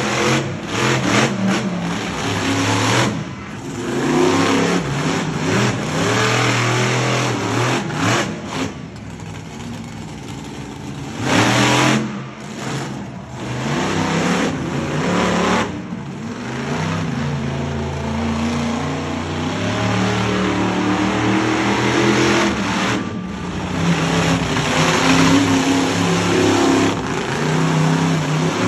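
Monster truck engine revving hard again and again, its pitch climbing and falling as the throttle opens and closes, loudest near the start, about halfway through and toward the end.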